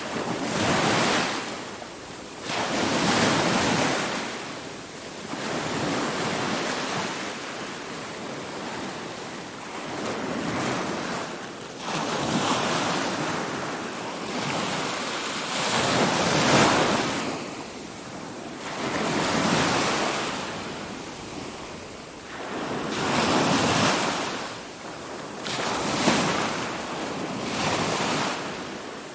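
Ocean waves breaking and washing on the shore, each wave swelling and falling away, one about every two to four seconds.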